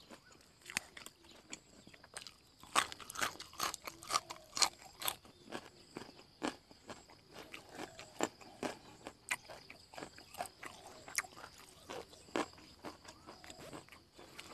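Close-up chewing of crunchy fresh raw herbs and greens eaten with fish larb: a dense run of wet crunches a few seconds in, then slower, scattered crunches.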